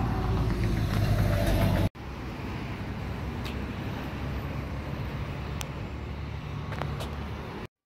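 Car on the move: a steady low engine and road rumble, broken by a short edit cut about two seconds in and cutting off abruptly near the end.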